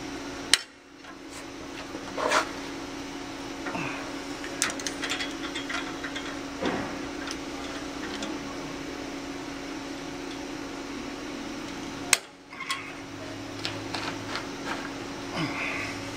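Hand tools working on a car's exhaust pipe from underneath: locking pliers and wire giving scattered light metal clinks and scrapes, with two sharp loud snaps, about half a second in and again near the end, over a steady hum of shop ventilation.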